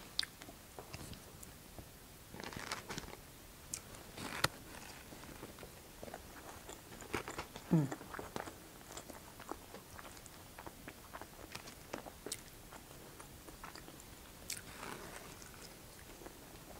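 Close-miked chewing and biting of cali fries (fries topped with carne asada, green sauce, cheese and salsa), with scattered small clicks and soft crunches. There is a brief low hum falling in pitch about eight seconds in.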